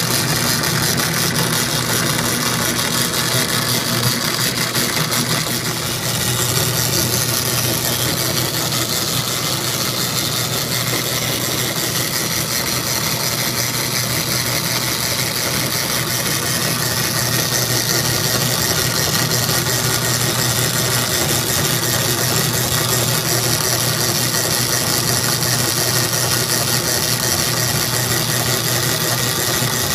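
Dayton power hacksaw running steadily, its electric motor and belt drive working the blade back and forth through a round metal bar cut wet with WD-40.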